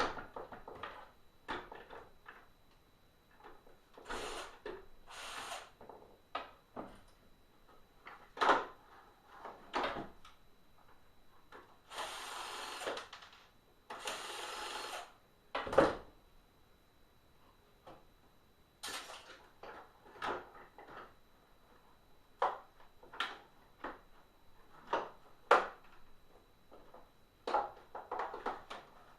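Plastic housing and internal parts of a Hoover SteamVac carpet cleaner being handled and pulled apart: scattered clicks, knocks and clatters, with two rubbing, scraping noises of about a second each midway.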